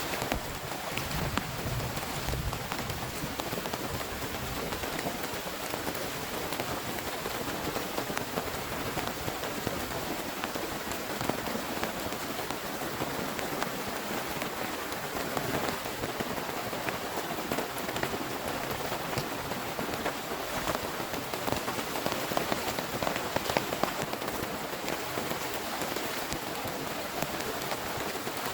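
Steady rain falling, with many close drops striking a surface as sharp taps.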